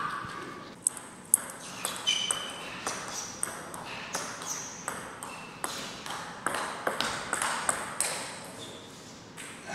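Table tennis ball struck back and forth in a fast rally, bouncing off rackets and the table in a quick, uneven run of sharp clicks.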